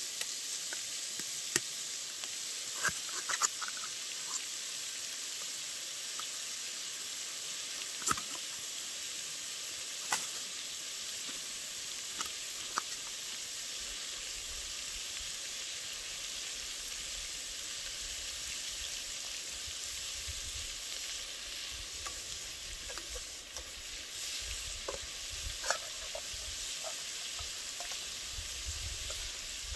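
Black bear meat and onion sizzling in a pot over a campfire: a steady hiss with scattered sharp crackles.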